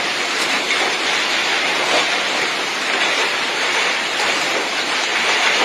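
Heavy storm downpour pelting down: a dense, steady hiss with no let-up.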